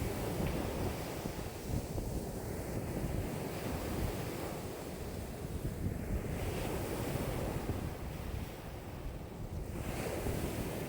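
Lake waves washing in, the hiss swelling every few seconds, under strong wind of about 5 m/s that buffets the microphone with a steady low rumble.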